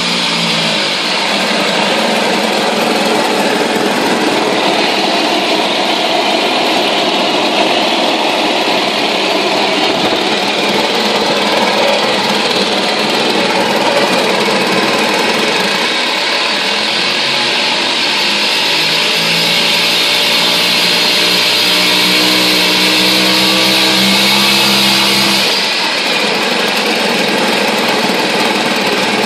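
Mariner 2hp single-cylinder two-stroke outboard engine running in a test tank, its propeller churning the water. The revs shift a little, picking up about two-thirds of the way through and easing back a few seconds before the end.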